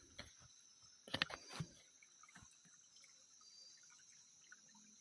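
A few short watery splashes and clicks about a second in, over a steady high chirring of insects along a small stream.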